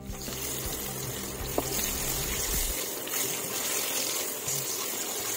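Potatoes frying in hot mustard oil in a kadai, sizzling steadily as a wooden spatula turns them.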